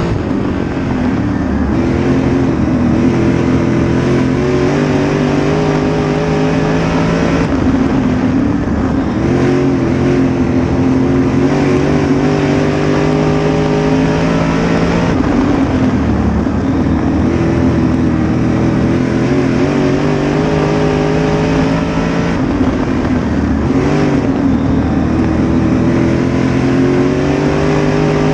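A dirt late model's CRUSA 604 crate engine, a small-block Chevrolet V8, heard from inside the cockpit at racing speed. Its note climbs and then falls away in a repeating cycle about every seven to eight seconds as the car accelerates down the straights and lifts for the turns, over steady tyre and dirt-track noise.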